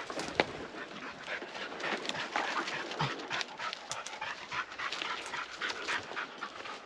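A tracking dog panting and moving through dry brush and twigs beside a downed moose, with rustling and crackling throughout and one sharp crack about half a second in.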